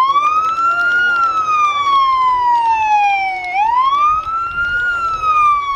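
Emergency vehicle siren on the wail setting. It goes through two slow cycles, each a quick rise in pitch followed by a long falling glide.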